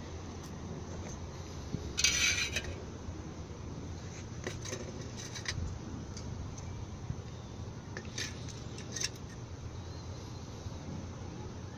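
Metal scraping and clinking as a burning metal cup is lifted out of a stainless-steel wood pellet stove with a pair of metal rods. A loud scrape comes about two seconds in, with light clicks later and another short clatter of scrapes around eight to nine seconds in.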